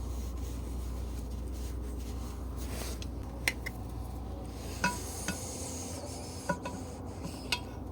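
Light metallic clicks and a faint scraping from piston parts being handled while the piston rings are turned to set their end gaps, over a steady low hum.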